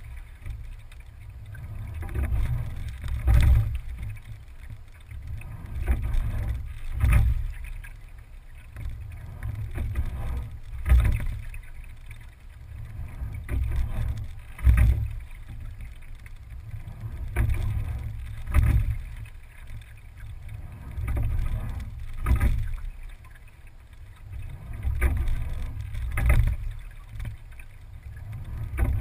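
Single scull being rowed at a steady, easy rate, about one stroke every four seconds: each stroke brings a sharp knock from the oars and rigging, then a swell of water rushing along the hull over a low rumble.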